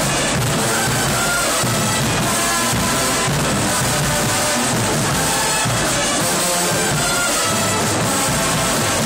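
Marching band playing loudly: brass with drums, held at a steady full volume.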